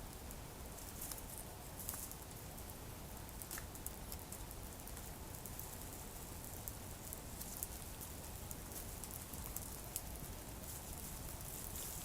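Campfire crackling, with irregular sharp snaps and pops of burning wood.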